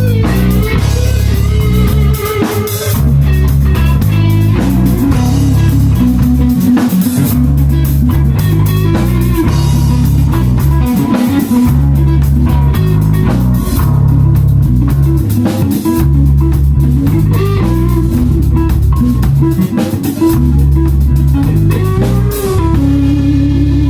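Rock band playing an instrumental passage: guitar over bass guitar and a drum kit, loud and steady.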